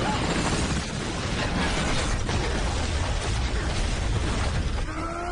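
Action-film sound effects from a helicopter chase: a heavy, continuous roar of rotor and engine noise with crashing impacts and bangs. Near the end a short pitched cry or whine rises and falls.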